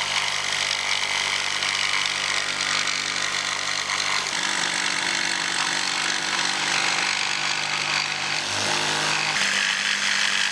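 Corded barrel-grip jigsaw running steadily as it cuts through a sheet of plywood, motor hum and blade rasp together; the tone shifts about four seconds in and again near the end.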